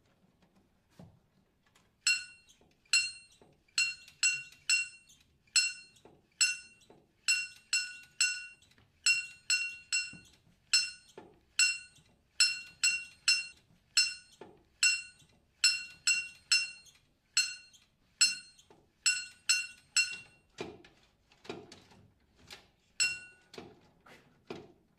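A handstanding karakuri puppet striking a small bronze kane gong, worked by strings from below: a long run of clear, ringing metallic strikes, about two a second in an uneven rhythm, starting about two seconds in. Near the end the strikes give way to several dull knocks, with one last gong stroke among them.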